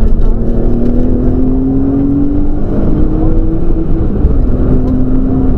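Nissan Skyline GTS-t's turbocharged RB20 straight-six, heard from inside the cabin under hard acceleration. Its pitch climbs steadily for about three and a half seconds, breaks briefly at a gear change, then pulls again, over heavy road noise.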